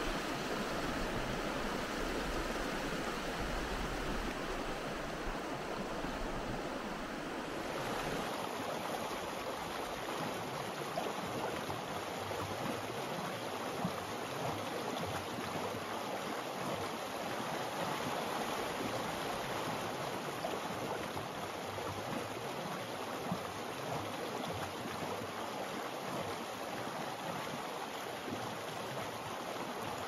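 Mountain stream rushing over rocks, a steady rush of water. About seven seconds in the sound shifts abruptly and loses its low rumble, then runs on evenly.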